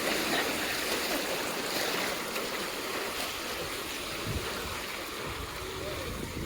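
Surf washing onto a sandy beach: a steady wash of waves.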